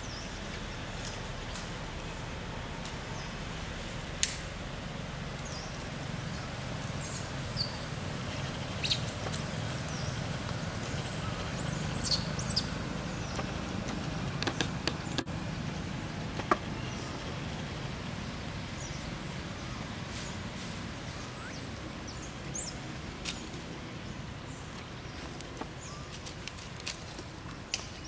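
Outdoor ambience: a steady low rumble with scattered sharp clicks and short high chirps.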